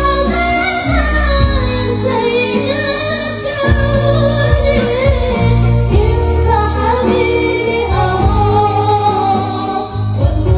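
A woman singing a slow melody with long held, gliding notes over an instrumental accompaniment with sustained low bass notes.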